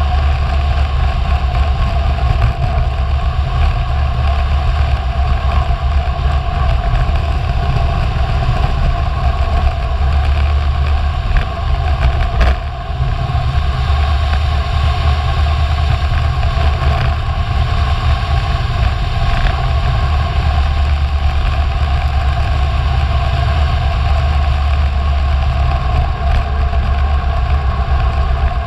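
Wind buffeting a helmet- or bike-mounted GoPro's microphone as a road bicycle descends at speed, heard as a steady, loud low rumble with a hiss of rushing air over it.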